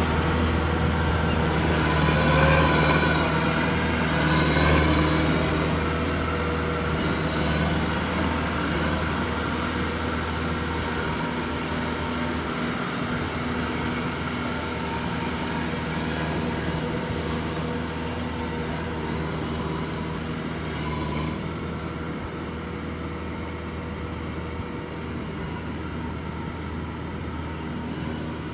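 An engine running steadily with a low hum that slowly grows quieter.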